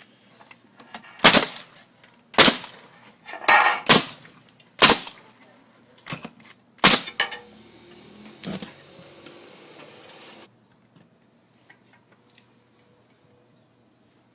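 Five loud, sharp knocks a second or so apart, with a few lighter taps between them, typical of work on a roof. A faint hiss follows and cuts off suddenly about ten seconds in.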